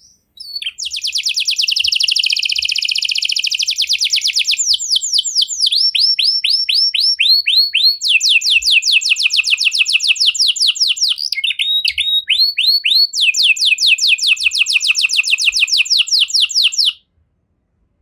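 Red domestic canary singing one long unbroken song of fast trills, each a rapid run of repeated chirps, switching to a new trill every few seconds before stopping abruptly near the end.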